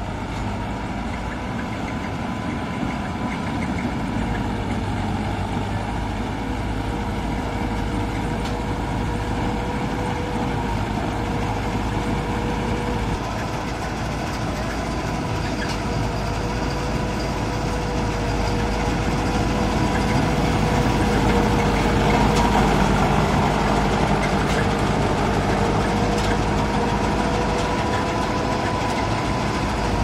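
Mahindra combine harvester running while cutting ripe rice: a steady engine drone with a high steady whine over it, growing louder as the machine draws near, loudest about two thirds of the way through.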